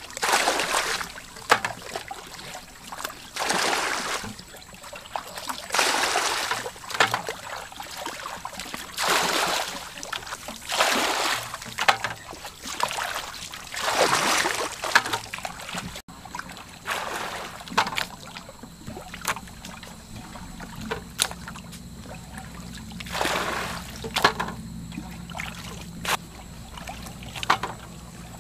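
Muddy water splashing and sloshing as a bucket is dragged, scooped and emptied in a shallow pool, in repeated swells every second or two. From about halfway the splashes come less often, with small sharp splashes, and a low steady hum comes in.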